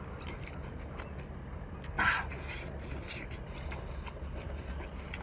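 Close-up eating sounds: small wet clicks of chewing and of a cooked octopus being pulled apart by hand, with one brief louder burst about two seconds in.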